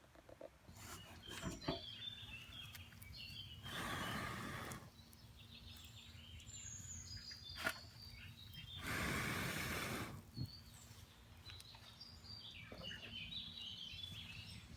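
Small woodland birds chirping on and off. Two rushing noises about a second long each, around four and nine seconds in, are louder than the birds, with a few sharp clicks.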